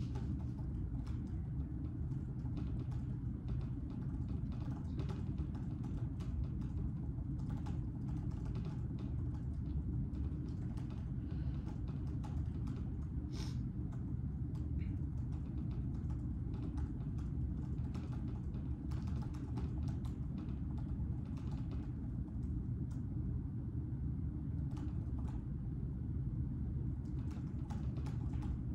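Irregular clicking of typing on a computer keyboard over a steady low room hum.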